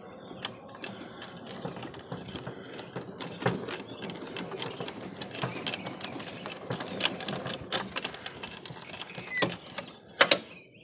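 Golf cart driving over rough ground, rattling with many sharp clicks and knocks, and a couple of louder knocks near the end.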